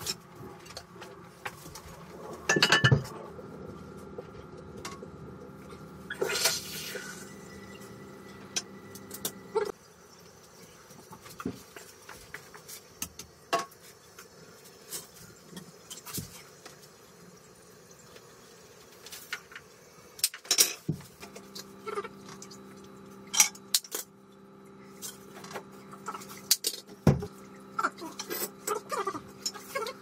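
Scattered clinks and knocks of metal hand tools against a porcelain toilet and floor tiles, a few of them sharp and loud. A steady hum runs underneath for a stretch near the start and again through the last third.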